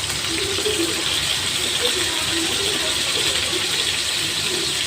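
Stuffed foli fish koftas shallow-frying in hot oil in a pan, a steady sizzle.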